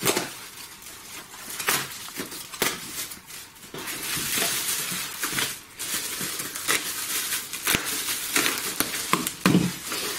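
Foil-lined thermal bubble wrap crinkling and rustling as it is sliced with a box cutter and pulled open: a dense run of crackles with sharp clicks through it.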